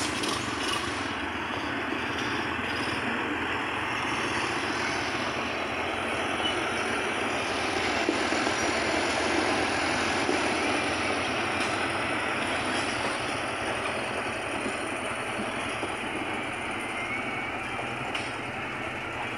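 Diesel engine of an XCMG motor grader running steadily as it works a gravel road, a little louder about halfway through.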